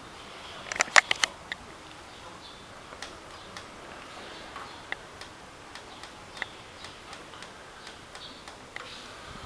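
Sharp clicks and light taps of small hard objects: a quick cluster of four about a second in, then scattered single ticks every half second or so.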